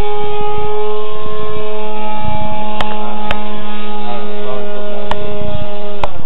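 Radio-controlled Piper Cub model plane's motor and propeller droning overhead, a steady pitched drone that shifts slightly in pitch once. A few sharp clicks come through, and the drone cuts off suddenly near the end.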